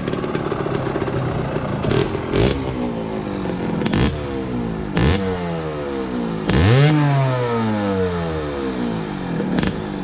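Kawasaki KMX125's single-cylinder two-stroke engine, on its stock reed valve, idles and is then revved in a series of short throttle blips. Each rev rises sharply and falls back slowly, and the biggest comes a little past halfway.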